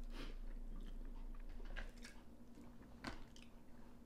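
Close-up eating sounds of steamed blue crab and shrimp: chewing and biting, with a few sharp clicks, the clearest about three seconds in.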